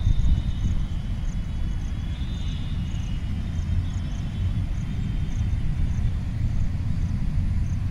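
Wind buffeting the phone's microphone: a loud, uneven low rumble. Faint high chirps repeat in the background.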